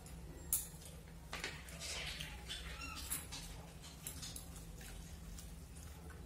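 Eating sounds of people eating rice and fish curry with their fingers: wet chewing and lip smacks with scattered small clicks, one sharper click about half a second in, over a low steady hum.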